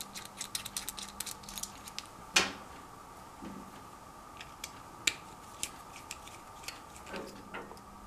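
Small metallic clicks and ticks from handling a small gold-plated connector and a small screwdriver. There is a quick run of clicks in the first two seconds, one louder click a little over two seconds in, then scattered ticks, over a faint steady hum.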